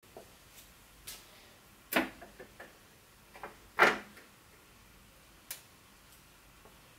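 Turntable being handled: a scattered series of light clicks and knocks, the two loudest about two and four seconds in.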